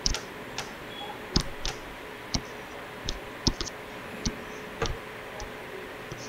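Stylus tip tapping and clicking on a tablet as lines are drawn: short, irregular clicks, about two a second, unevenly spaced.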